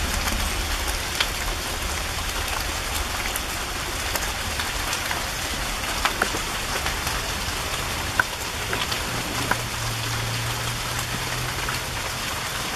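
Steady rain falling, with scattered single drops tapping close by. A low hum comes in for a few seconds past the middle.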